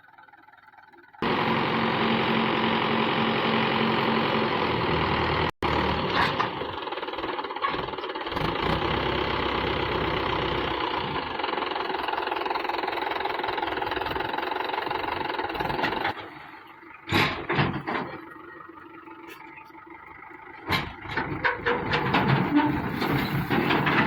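Heavy diesel earthmoving machinery running loud and steady, cutting in abruptly about a second in. It drops back to a lower level for several seconds, with a few sharp knocks, then comes up loud again near the end.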